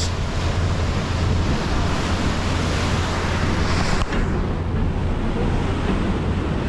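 Wind buffeting the microphone on the deck of a moving tour boat, over a steady low engine hum and the rush of water along the hull. The high hiss of the wind thins abruptly about four seconds in.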